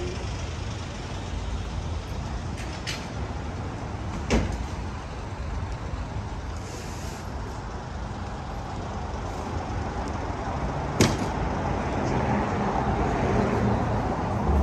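City street traffic noise: a steady rumble of passing vehicles that swells in the second half, with two sharp knocks, one about four seconds in and one about eleven seconds in, and some voices.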